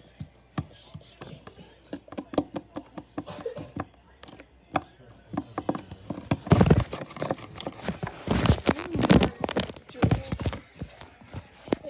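Sticky slime being squished and pulled by hand, giving rapid irregular clicks and pops, with two louder squelching stretches a little past the middle.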